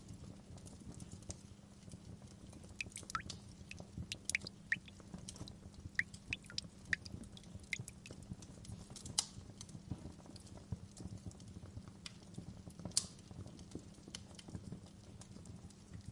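Wood fire crackling in a fireplace: irregular sharp pops and snaps over a steady low rumble, with a few louder pops.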